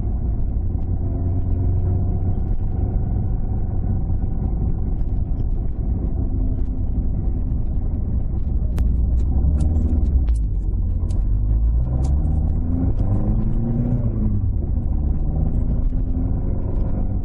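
Toyota AE86 Sprinter Trueno's five-valve 4A-GE four-cylinder on twin Weber carburettors, running under way with a loud, steady drone; around the middle the engine pitch rises and falls several times. A few sharp clicks come through at the same time.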